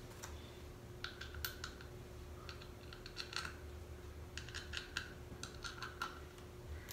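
Light clicks and clinks of small metal pins and the steel plane-body parts handled and fitted together by hand, in several short clusters.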